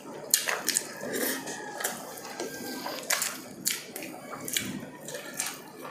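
Close-miked chewing and lip-smacking of people eating braised pork ribs by hand: irregular sharp smacks and clicks, a few each second.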